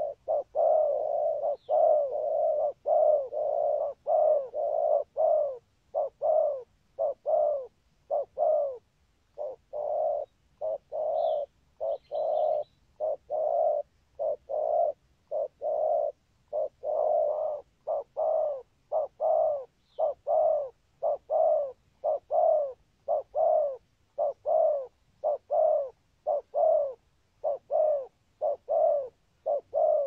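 Spotted dove cooing in a fast, unbroken run of short, low coos, each rising and falling, nearly two a second with a few brief gaps: the rapid 'gù' cooing series. Faint high chirps of small birds come in a few times.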